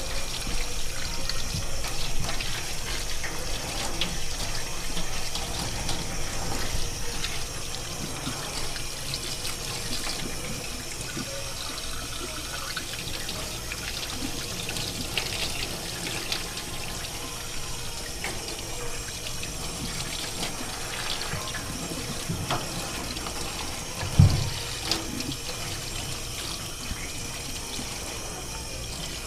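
Tap water running and splashing over a pig's head in a stainless steel sink as gloved hands scrub it, a little louder in the first few seconds. There is one thump about five seconds before the end.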